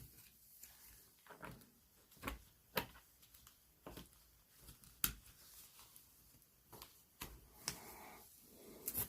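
Faint, scattered clicks and taps of small hobby tools and their boxed packaging being handled, about nine separate knocks with quiet between them.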